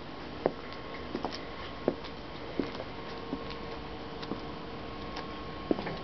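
Footsteps going down a steel diamond-plate staircase: light taps about every two-thirds of a second, over a steady hum.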